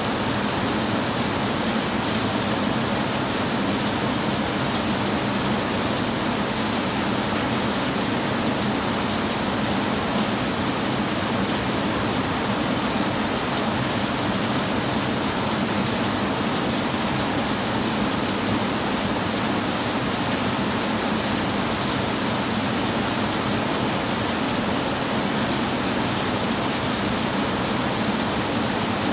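Heavy rain falling on a tin roof, an even, unbroken hiss with no thunder.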